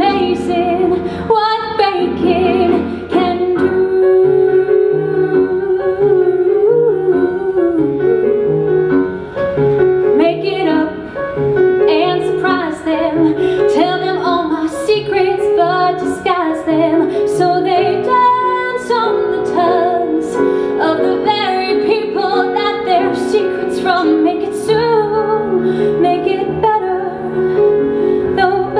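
A woman singing a musical-theatre song solo into a microphone, accompanied by a grand piano.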